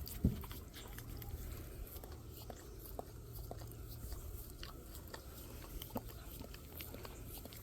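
A dog licking and chewing at a pup cup of whipped cream: irregular small clicks and smacks, with one louder knock shortly after the start.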